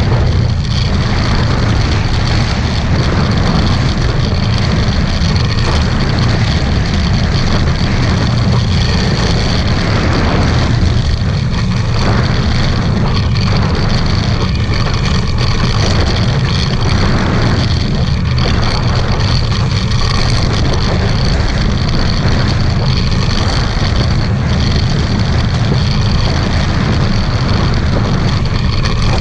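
Strong wind battering the microphone with a loud, steady rumble, over the rush of choppy water against a Hobie 16 catamaran's hulls as it sails fast in high wind.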